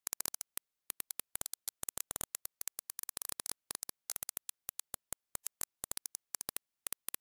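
Background music, chopped into rapid short bursts with silent gaps between them.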